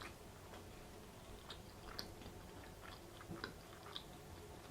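Faint, close-up chewing of food, with scattered soft mouth clicks and smacks.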